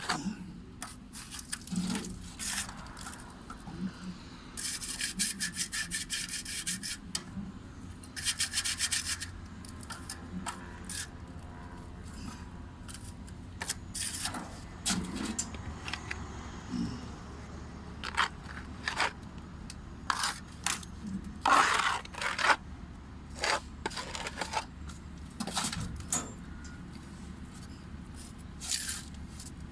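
Hand tools scraping and rubbing on a stucco wall during crack repair, with two stretches of rapid back-and-forth strokes and scattered knocks and clicks.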